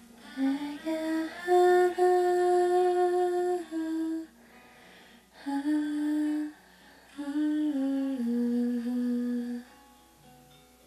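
A woman humming a slow melody in three phrases of held notes that step down near the end, over a faint steady low note.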